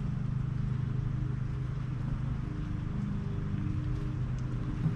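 A coin scraping the latex off a scratch-off lottery ticket, over a steady low motor-like hum.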